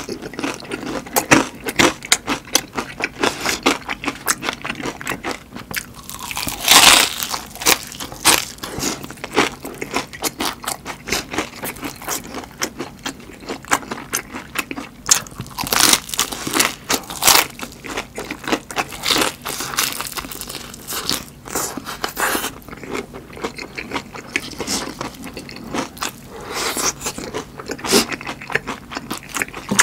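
Close-miked crunching and chewing of a battered, deep-fried stuffed chili pepper (Korean gochu-twigim), the crisp batter crackling with each bite and chew. The loudest crunch comes about seven seconds in.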